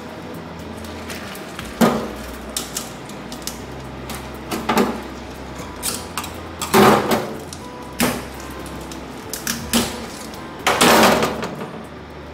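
Knife blade scraping and knocking against the shell of a large rock oyster as it is pried open, giving irregular hard clacks and scrapes of steel on shell, the longest and loudest about eleven seconds in.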